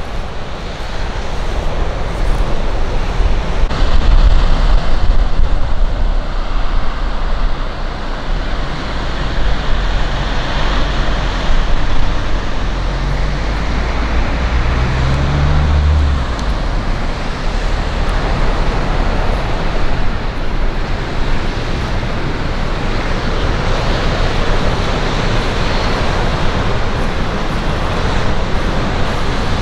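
Wind buffeting the microphone with a deep rumble, over a steady rushing noise. The rumble is strongest in the first half and eases off after about sixteen seconds.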